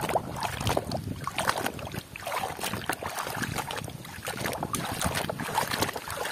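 Water sloshing and splashing in a tub as a plastic toy vehicle is scrubbed under muddy water with a small bristle brush, with irregular rubbing strokes and light clicks.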